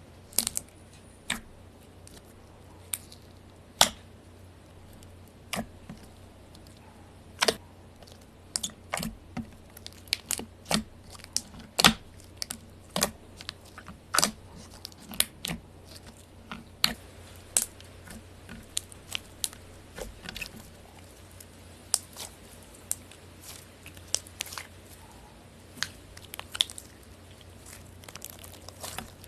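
Slime being squeezed and poked by hand, giving irregular sharp pops and crackles, about one or two a second.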